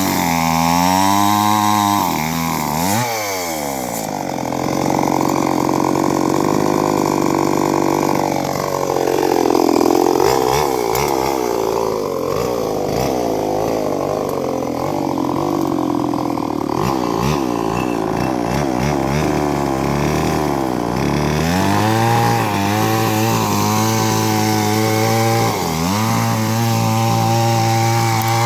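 Two-stroke chainsaw cutting into a rubber tree trunk. The engine revs up and down, then its pitch drops and roughens under load through a long cut. Near the end it settles back to a steadier, higher pitch.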